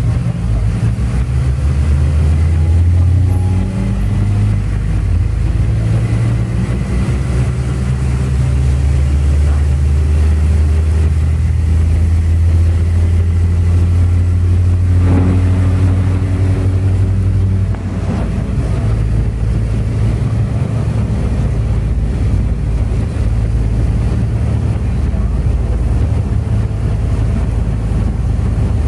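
Route minibus running in traffic, heard from inside the passenger cabin: a steady low engine hum with road noise, the engine note rising a couple of times as it pulls away and picks up speed.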